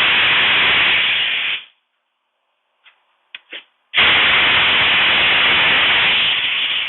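Two long, loud blasts of hissing air, each cut off or started abruptly, with a few short clicks in the gap between them. They are most likely from a compressed-air blow gun or air hose being aimed to drive the bird out.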